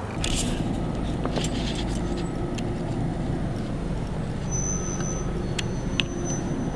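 Steady low rumble of a car driving, with engine and road noise heard from inside the cabin and a faint click about six seconds in.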